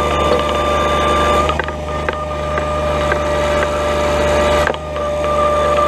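John Deere 1-series compact tractor's diesel engine running under backhoe work, with a steady whine over it. The whine fades from about a second and a half in until near the end, and a few light knocks come through.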